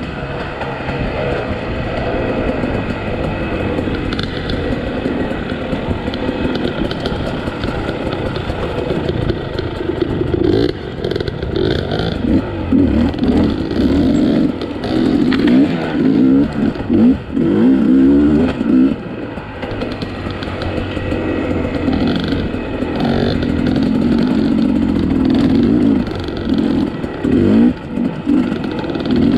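Two-stroke dirt bike engine heard close from the rider's own bike, revving up and down in quick surges as it works over rough trail, busiest in the middle and again near the end.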